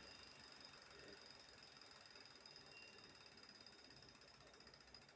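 Wahoo KICKR bike trainer making a faint, rapid ratchet-like ticking, the strange noise under investigation; the ticks grow more regular and distinct near the end.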